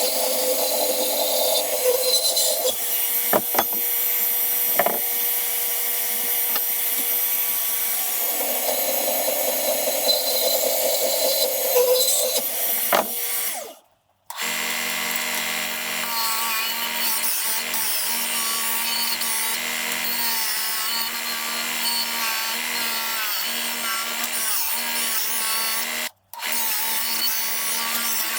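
A power tool running steadily, with a couple of sharp knocks a few seconds in. The sound cuts out abruptly about halfway and again near the end, and after the first break a different steady tool sound takes over.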